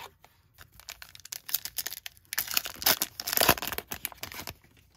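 A foil trading-card pack wrapper being torn open and crinkled by hand, a dense crackling that builds up from about a second in and stops shortly before the end.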